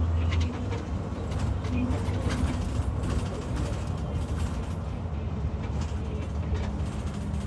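2022 IC CE gasoline school bus running: a steady low engine drone that eases slightly about half a second in, with scattered light clicks and creaks. The bus has an exhaust leak from a faulty catalytic converter.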